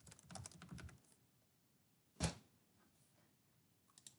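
Computer keyboard typing, faint: a quick run of keystrokes in the first second, then a single louder click about two seconds in, and a couple of faint clicks near the end.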